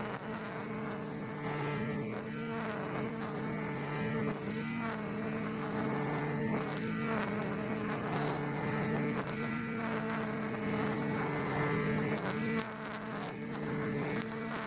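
Backpack brush cutter's small petrol engine buzzing at cutting speed, its 2.2 mm nylon line whipping through grass. The engine note dips slightly now and then as the line bites into the grass, and the sound drops briefly near the end.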